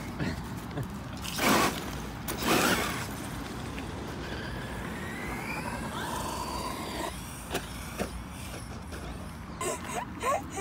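A cheap brushless RC car being driven after something on it has broken: two short noisy rushes, then a faint electric-motor whine rising in pitch, and a few clicks near the end.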